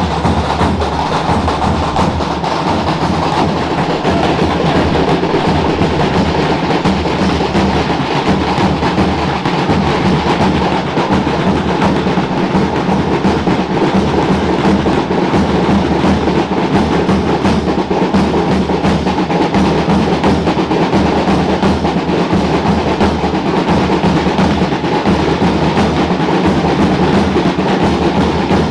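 Traditional Calabrian drums (tamburi) beating a fast, unbroken rolling dance rhythm for the giants' dance.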